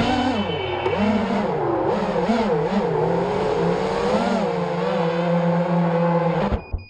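FPV racing quadcopter's brushless motors whining, the pitch rising and falling over and over with the throttle, recorded on the drone's onboard camera. The motor sound cuts off suddenly near the end.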